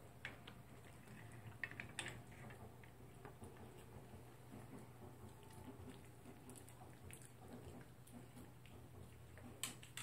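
Faint clicks and taps over quiet room tone: the metal latch of a wire dog crate being fastened near the start, then a toy poodle shifting about inside the crate, with a few louder taps near the end.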